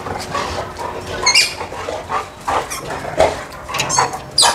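Labrador retriever making a series of short, high-pitched squeaks and whines.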